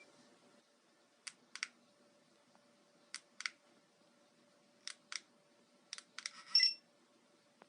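Buttons on a car alarm key fob being pressed and released, each press a small double click, four times about every one and a half to two seconds. A short electronic beep sounds near the end.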